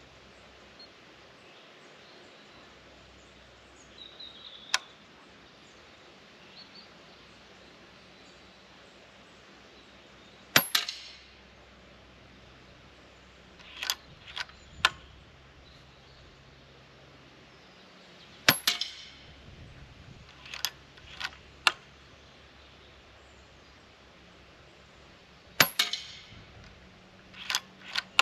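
Silenced Weihrauch HW100 PCP air rifle firing three shots, each a short sharp report with a brief tail, seven to eight seconds apart. A few seconds after each shot comes a quick run of two or three metallic clicks as the rifle is cycled to load the next pellet.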